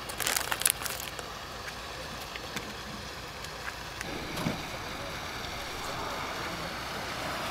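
Plastic bag of frozen krill bait crinkling and rustling as a hand digs into it, a quick burst of crackles in the first second. After that there is a steady wash of wind and harbour water.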